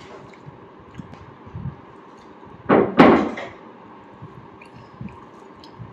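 A door banging shut about three seconds in, a sharp double knock with a short ring after it, amid faint table and room noises.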